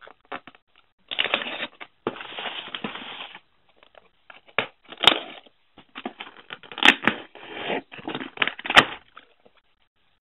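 A serrated knife slicing through packing tape along the seam of a corrugated cardboard case in two strokes, then tape tearing and the cardboard flaps being pulled open with crackling and a few sharp snaps.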